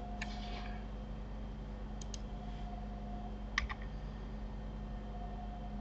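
A few sharp clicks of computer keys and mouse buttons while a 3D mesh is edited: one click at the start, a quick double click about two seconds in, and a louder click with a couple of lighter ones about three and a half seconds in. A faint steady electrical hum runs underneath.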